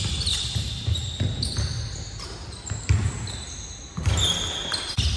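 A basketball bouncing on a hardwood court with irregular thuds, the strongest about three and four seconds in. Basketball shoes squeak in short, high bursts on the floor between the thuds. The sound echoes in a large gym hall.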